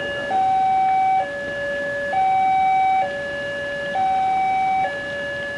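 Railway level-crossing alarm sounding a steady two-tone electronic warning. A higher and a lower note alternate, each held just under a second, and the higher note is louder.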